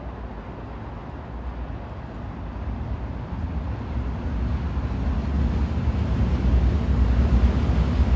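Train running: a steady low rumble with hiss above it that grows steadily louder.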